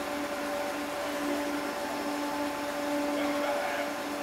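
Merseyrail Class 508 electric multiple unit standing at the platform, giving a steady low hum.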